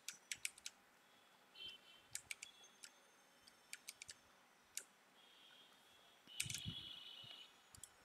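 Faint, scattered computer mouse clicks, a few at a time, in a quiet room. About six and a half seconds in comes a louder brief rubbing noise with a low thump, lasting about a second.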